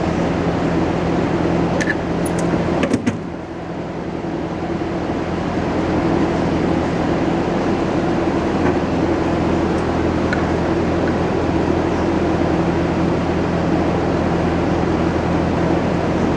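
Steady droning hum of a running machine, with a few light clicks and a brief dip in level about three seconds in.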